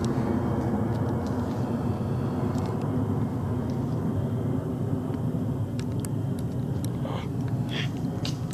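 Steady low engine rumble, with a few faint clicks and rustles near the end.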